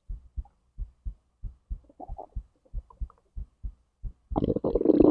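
Human heartbeat, a steady train of soft low thumps heard through the body. Near the end a louder gurgling stomach rumble of digestion sets in.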